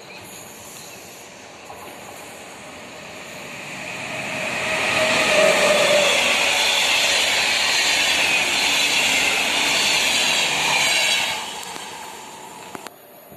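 Passenger train of coaches running past close by: a steady rush of wheels on rail that grows louder over the first few seconds, holds, then drops off sharply about eleven seconds in as the last coach goes by.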